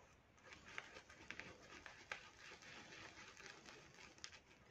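Faint, soft wet ticks and squishes of a shaving brush whipping dense, glossy lather in a small bowl, scattered irregularly.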